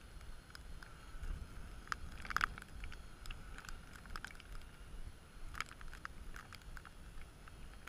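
Strong wind rumbling on the microphone, with the faint, wavering whine of a drone's motors and a few scattered light clicks, the sharpest about two and a half seconds in.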